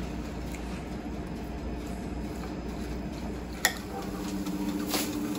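Low steady hum with faint background noise, plausibly from the electric vertical grill running as it roasts the meat. A short click comes about three and a half seconds in, and after it the hum grows a little stronger.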